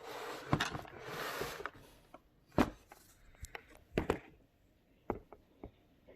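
A small die-cast toy car being handled: a short rustle, then a handful of separate sharp clicks and taps.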